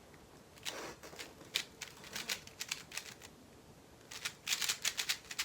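A 3x3 speedcube being turned quickly: a run of sharp plastic clacks as the layers snap round, a short pause about two-thirds of the way through, then a faster burst of turns near the end.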